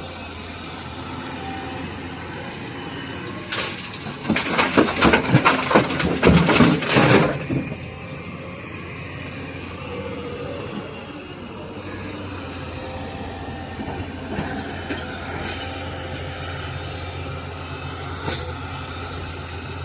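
Large excavator's diesel engine running steadily. From about three and a half to seven and a half seconds in, there is a loud, dense clatter of many stone impacts as rock is handled.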